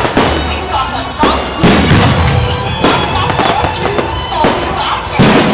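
Aerial fireworks bursting: about six loud bangs roughly a second apart, over a continuous crackle, with music playing beneath.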